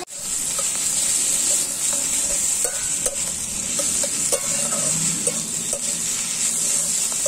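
Sliced onions with ginger-garlic paste sizzling in hot oil in a metal kadai, stirred with a metal spatula that scrapes and clicks against the pan at irregular intervals.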